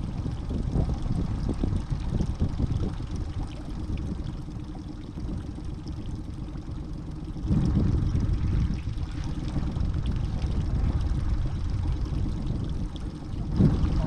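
Wind buffeting the microphone: a rough, low rumble that grows louder a little past halfway and again briefly near the end.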